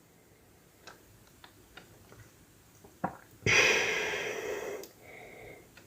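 A person's breath at the microphone, a drawn breath of over a second about halfway through that fades away, among a few faint mouth clicks.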